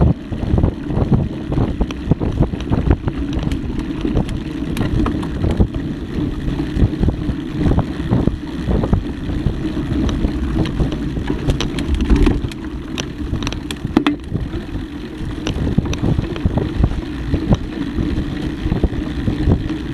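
Mountain bike ridden fast over a dirt trail: a steady low rumble of wind on the microphone and knobby tyres on the ground, with frequent clicks and rattles as the bike jolts over bumps and roots.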